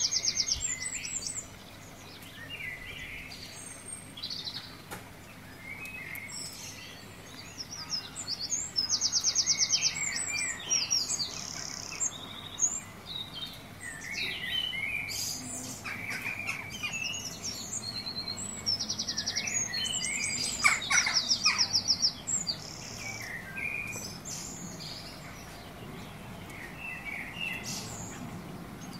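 Birdsong: several birds chirping, with rapid high trills that recur every few seconds. A few short, sharp clicks come about halfway and two-thirds of the way through.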